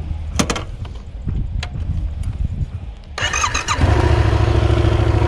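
Yamaha motorcycle engine started on the electric starter: a brief crank about three seconds in, catching almost at once and settling into a steady idle.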